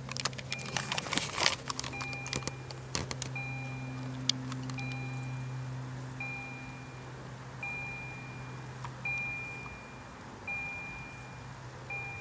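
Level-crossing warning bell ringing, a short electronic ding repeating about once a second while the crossing is closed, over a steady low hum. A flurry of sharp clicks and crackles in the first three seconds.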